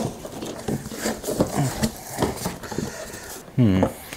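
A cardboard box being unpacked: the taped flap pulled open and the flaps folded back, with irregular rustling, scraping and small knocks of cardboard and the coiled air hose inside.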